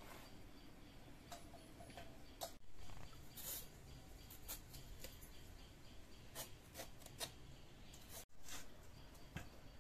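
Scattered light clicks and taps, a dozen or so spread irregularly over a faint steady background, like small objects being handled.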